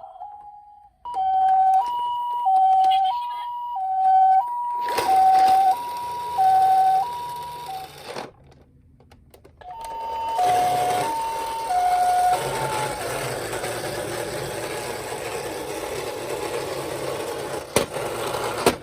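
Toy ambulance minicar's electronic two-tone pee-po siren, alternating a high and a low note about every 0.6 s. It stops about 8 s in, starts again about 10 s in and winds down a couple of seconds later. A steady rushing whir sounds with it from about 5 s in and carries on after the siren ends, with a sharp click near the end.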